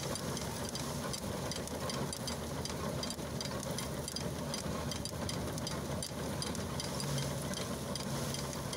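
Wooden threshing drum running under load, belt-driven by a steam traction engine: a steady mechanical hum over a dense clatter with faint regular ticking. The hum grows stronger near the end.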